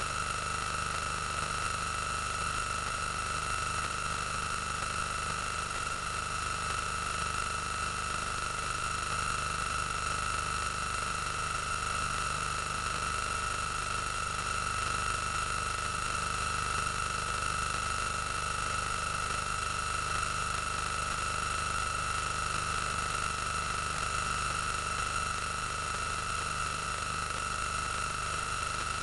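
Steady hiss with a constant high-pitched whine and a low hum that never changes: recording or transfer noise rather than sound from the scene.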